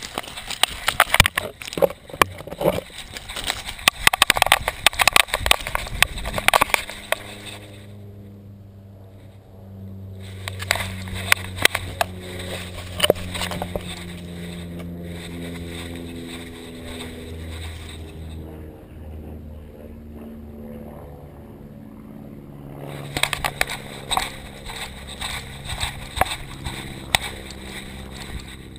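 Crackling and crunching from a Boston Terrier's head-mounted camera as the dog walks and noses over river-rock gravel and dry grass, loudest in the first seven seconds. From about seven seconds in, a steady low engine drone runs underneath, with more bursts of crackling over it.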